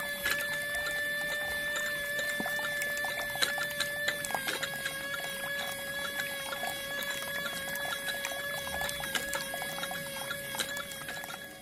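Water pouring off a small plastic chute and splashing into a shallow tank, over the steady high whine of a small DC motor driving the model well's pump.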